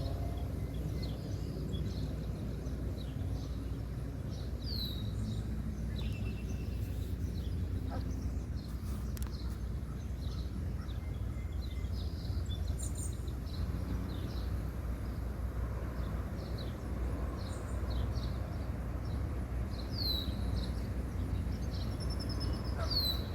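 Songbirds chirping over a steady low outdoor rumble, with a few short, sharp falling calls about five seconds in, near twenty seconds and again near the end.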